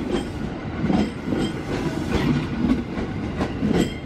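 JR 205 series electric commuter train passing close by: a steady rush of running noise, with a few sharp clacks of the wheels over rail joints at uneven intervals.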